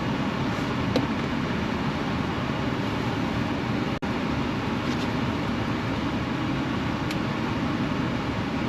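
Steady low rumble and hiss of a van running, with a brief break about four seconds in.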